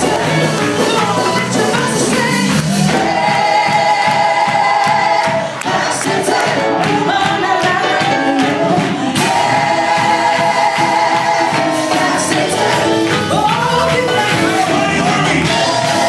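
Live gospel worship music: a church worship team singing into microphones with keyboard and band, the voices holding long, wavering notes twice.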